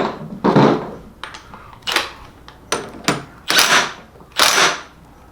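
Quaife sequential transmission being worked on the bench: a run of six or seven short bursts of mechanical clatter at uneven spacing.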